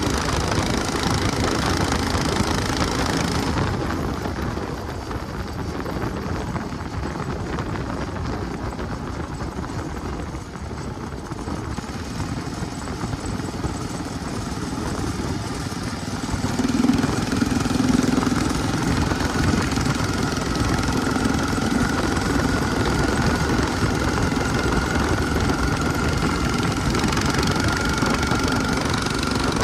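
Predator 459 single-cylinder four-stroke engine of an off-road buggy running under way through a torque converter. It eases off about four seconds in and picks up again, louder, about sixteen seconds in, with a thin steady whine over it near the end.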